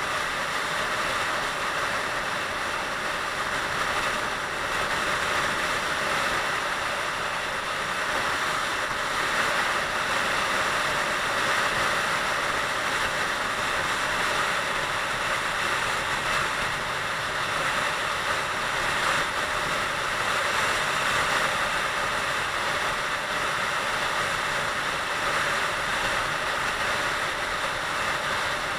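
Steady rush of wind on the microphone of a Honda CBR125R running at high speed, with the drone of its small single-cylinder engine underneath.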